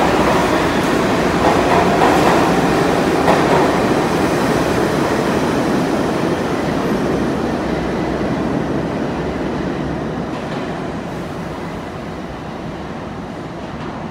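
Bombardier R62A subway train pulling out of the station. Its wheels clatter over the rail joints as the cars go past, with a few sharp clicks in the first few seconds. Then the rumble fades steadily as the train runs off down the tunnel.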